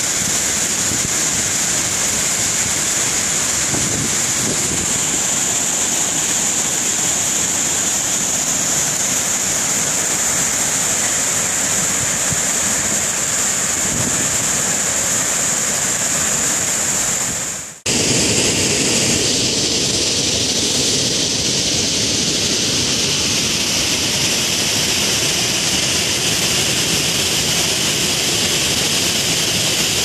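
Large terraced waterfall: a steady, loud rush of falling water, an even hiss with no breaks. About 18 seconds in it cuts out for a moment and comes back with a fuller, deeper mix.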